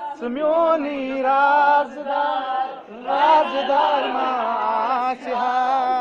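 A group of young men singing together in chorus, with long held and gliding notes and a brief pause about three seconds in.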